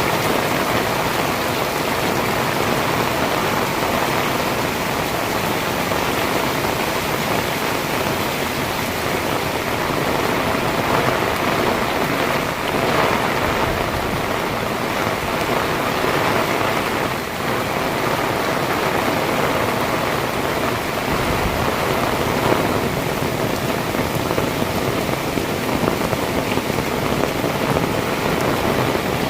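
Heavy rain pouring and pattering on surfaces, a steady dense hiss with a few faint knocks.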